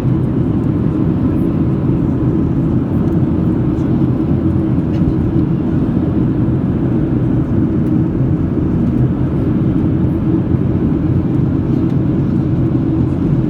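Steady cabin noise inside a Boeing 737-800 in flight: the drone of its jet engines and the rushing airflow, heaviest in the low end and unchanging throughout.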